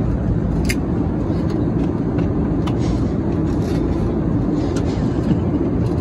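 Airliner cabin noise: a steady, loud, low roar of engines and air rushing past the fuselage, unchanging throughout.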